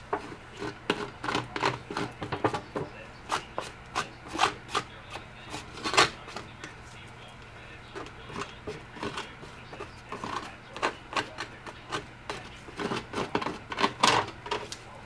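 A mixing stick scraping and tapping against an aluminium pie tin while stirring thick epoxy bedding compound, in irregular short strokes, loudest about six seconds in and again near the end.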